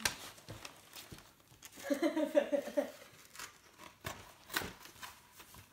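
Stiff card envelope and paper being handled and pulled open: scattered rustles and sharp clicks. About two seconds in, a short pitched vocal sound lasting about a second is the loudest thing.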